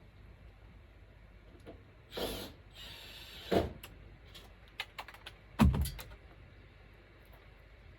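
Handling noises from installation work: a scraping rasp, a knock, a few sharp clicks, and then a heavy thump, the loudest sound, past the middle.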